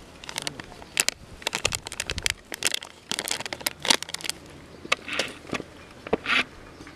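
Irregular crinkling and crackling clicks as spice powders are handled and poured onto raw chicken in a steel bowl, busiest in the first half, with a few short hissy rustles near the end.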